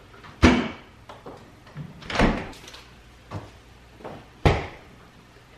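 Refrigerator doors being shut and groceries put away: a series of dull thumps and knocks, the three loudest about half a second, two seconds and four and a half seconds in.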